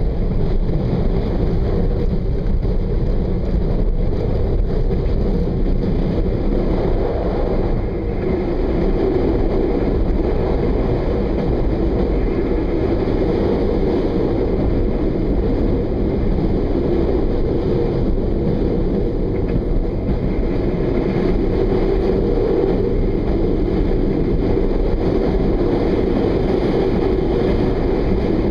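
Regional diesel train running along the line, heard from on board: a steady rumble of wheels on rails and engine, with no distinct clicks or changes.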